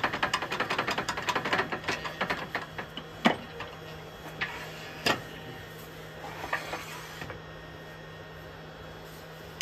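Wood lathe running with a carbide turning tool cutting away the front of a small bowl: a rapid stream of clicking cuts for about three seconds, then a few single clicks as the cutting eases off, over the lathe's steady motor hum.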